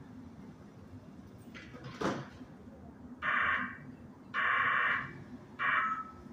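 A single knock, then three short bursts of compressed air hissing from a stopped NJ Transit commuter train's pneumatic system, each about half a second long.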